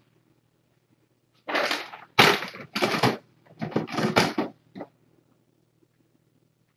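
A litter box being handled and set up: five or six short, loud bursts of rustling, handling noise between about one and a half and five seconds in.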